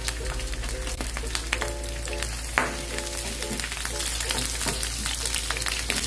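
Sliced red onions sizzling and crackling in hot oil in a nonstick frying pan, being half-cooked. A wooden spatula knocks and scrapes against the pan as the rings are turned.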